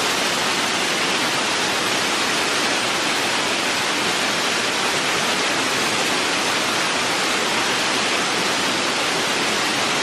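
Waterfall: falling water making a steady, even rushing noise that does not change.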